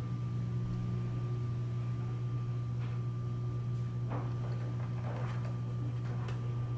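Steady low electrical hum with a faint high steady whine, and a few faint clicks and rustles about four to five and a half seconds in.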